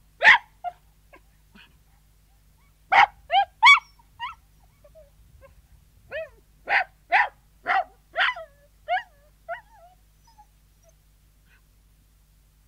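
Sealyham terrier barking and yelping in short bursts: one sharp bark at the start, a quick run of three about three seconds in, and a run of six from about six seconds in that trails off into softer yelps.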